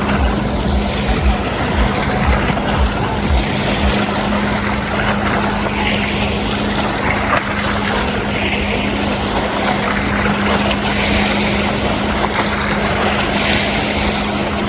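Camping car driving at a steady speed: an even engine drone with road and wind noise, and some low wind buffeting on the microphone in the first few seconds.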